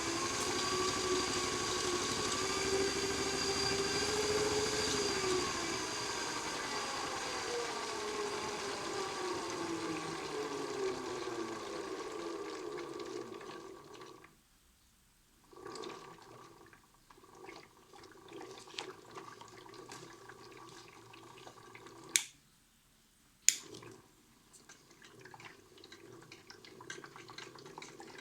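Modified Miele toy washing machine's small electric motor whining with the drum spinning, its pitch falling over about ten seconds as the spin winds down. This is followed by broken water sounds and two sharp clicks.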